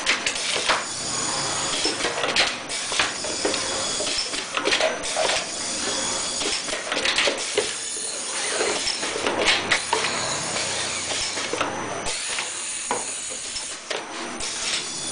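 Pneumatic cylindrical screen printing machine cycling: repeated short hisses of air and mechanical clatter as the screen frame and squeegee move back and forth, at irregular intervals of about a second or two.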